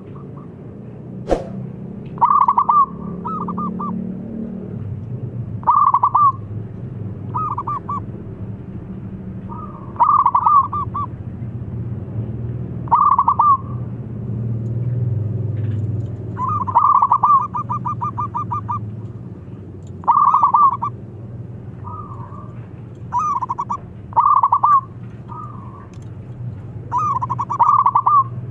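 Zebra dove (perkutut) cooing: short phrases of quick staccato coo notes repeated every two to four seconds, with one longer rolling phrase about midway, over a steady low hum. A single sharp click about a second in.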